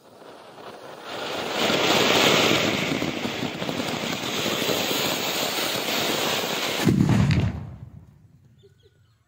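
Anar (flower-pot firework fountain) spraying sparks with a rushing hiss that swells over the first second or two and then holds steady. About seven seconds in there is a brief low boom, and the hiss then dies away.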